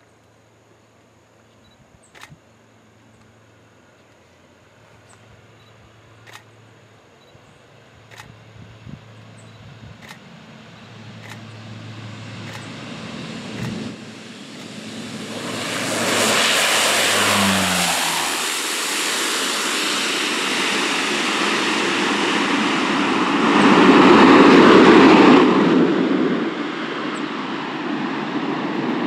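Twin-engine turboprop landing: its engine and propeller noise grows from faint to loud as it comes in, touches down and rolls toward and past the runway edge. It is loudest about 24 seconds in as it goes by, then eases off a little as it rolls away.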